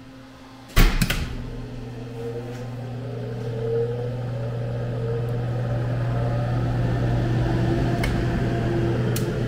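Convection oven's fan motor starting up: a loud clunk about a second in, then a steady hum as the fan whirs up to speed, its pitch rising over a few seconds before levelling off. Two faint clicks near the end.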